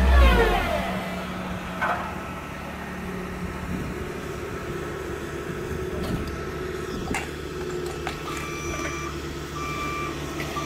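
Road roller's diesel engine running steadily at idle. Near the end, its reversing alarm starts beeping about once a second, signalling that the machine is backing up.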